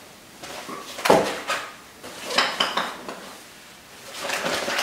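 Snack items being handled and packed into a nylon backpack: a sharp knock about a second in, a few more knocks and light clinks a little later, then rustling of bags and fabric near the end.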